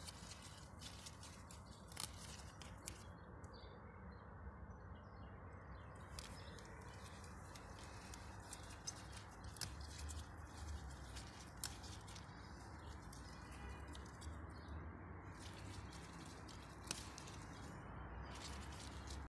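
Faint steady low background noise with scattered short, sharp ticks and chirps throughout, a few louder ones standing out.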